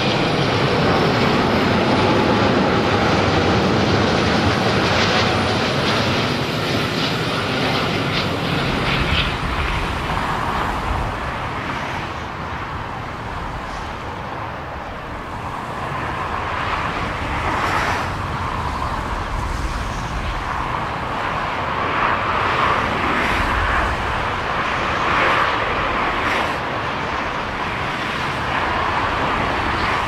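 Jet airliner engines running as airliners fly low over the runway: first an Airbus A380's four jet engines in a steady roar, then from about ten seconds in a twin-engine jet on approach, with wind gusting on the microphone in low rumbles.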